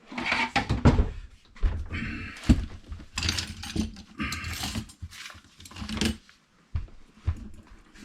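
Irregular thunks and knocks with short scraping, rustling stretches: parts and fuel line being handled and pushed into place during a diesel heater install.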